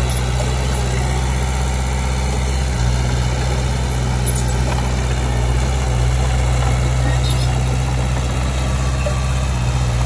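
Diesel engine of heavy earthmoving equipment running steadily, its note shifting slightly about three seconds in and again about six seconds in.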